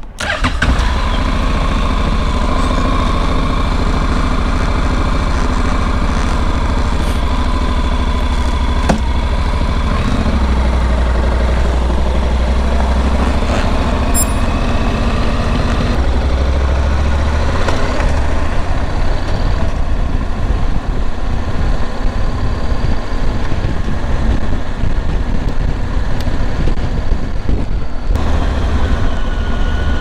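Honda NC700X's parallel-twin engine running as the motorcycle rides off through town traffic, heard muffled from a microphone inside a closed jacket pocket. The sound comes in suddenly and loud at the start and then holds steady and deep.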